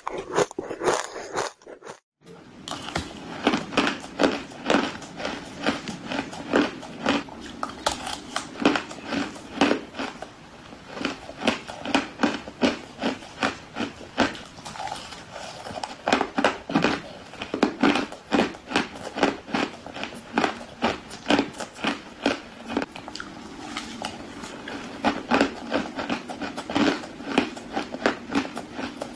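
Crushed ice being bitten and crunched between the teeth, a rapid, continuous run of crisp crunches with a short break about two seconds in.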